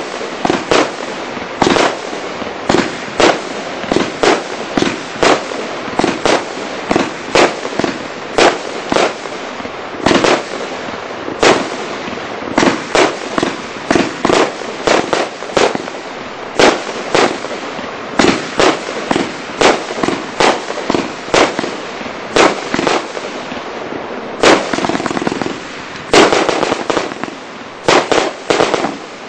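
Devils Dungeon 49-shot firework cake firing shot after shot, an uneven run of sharp bangs about two a second over a continuous crackle from the bursting stars. Near the end several shots go off close together.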